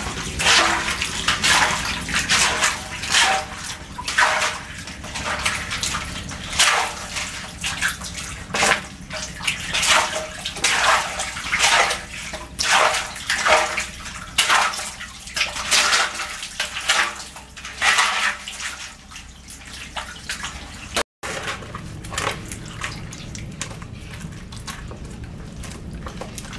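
Repeated splashing and sloshing in shallow muddy water, about one splash a second, as fish are scooped out by hand and with a basket. The splashes grow fainter after a short break near the end.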